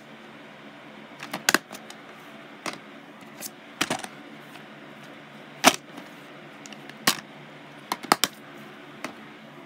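Plastic Blu-ray and DVD cases being handled, opened and set down: about ten scattered sharp clicks and clacks, the loudest a little past the middle, over a faint steady hum.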